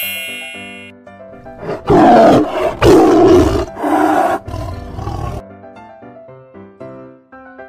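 Lion roar sound effect: four roars in a row, starting about two seconds in and lasting about three and a half seconds, over light keyboard background music.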